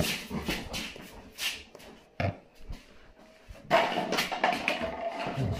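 A dog vocalizing amid scattered rustling noise, with a louder stretch beginning a little past halfway.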